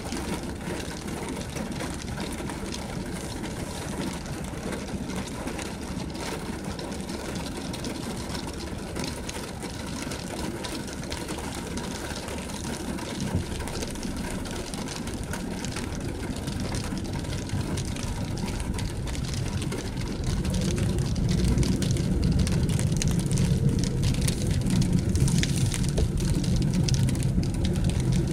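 Car engine running, heard from inside the cabin, with light rain ticking on the windshield. About twenty seconds in, the low rumble grows louder.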